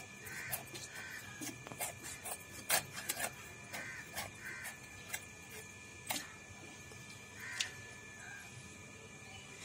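Irregular sharp knocks and clicks, with short harsh calls in pairs several times, over a faint steady hum.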